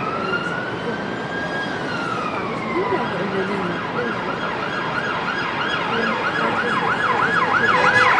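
Emergency vehicle siren: a slow rising and falling wail, then from about three seconds in a fast yelp that grows louder near the end, over steady street noise.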